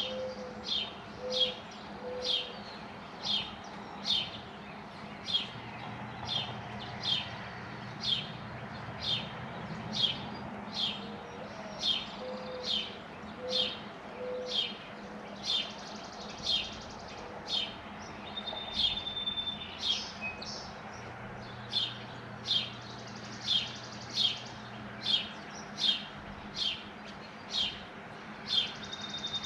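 A small songbird chirping steadily, one sharp chirp about every second. Beneath it a mourning dove coos softly twice, near the start and again about halfway: a rising note followed by three low hoots.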